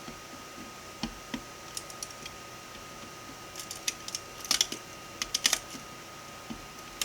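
Small, sharp plastic clicks and cracks from printed support material being broken away from a 3D-printed ratchet. The clicks are sparse at first, then come in quick clusters about halfway through.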